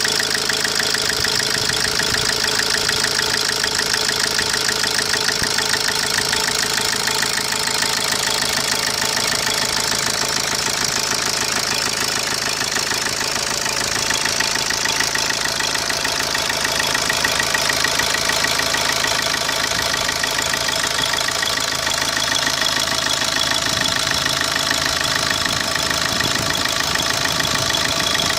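Opel Corsa D 1.3 CDTI four-cylinder turbodiesel idling steadily with a fast, even ticking clatter: the unusual engine noise that the owner is showing.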